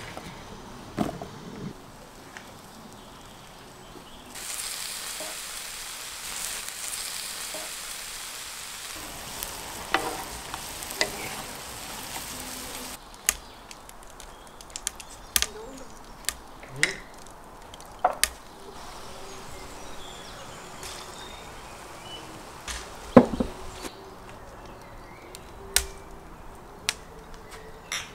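Chunks of meat frying in a hot pan, a loud sizzle that starts about four seconds in and drops away after several seconds, followed by scattered knocks and scrapes of a wooden spoon stirring the meat.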